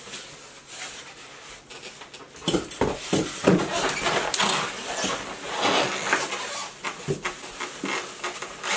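Packing being pulled out of a cardboard shipping box: foam blocks and cardboard scraping, rustling and knocking in irregular bursts, busier after the first couple of seconds.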